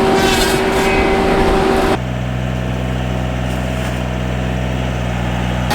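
Skid steer engine running the hydraulically driven circular tree saw, with a steady whine over the engine hum. About two seconds in the sound cuts abruptly to the engine running steadily without the whine.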